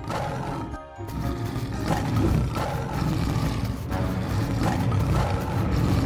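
Background music with a cartoon tiger's roaring sound effects.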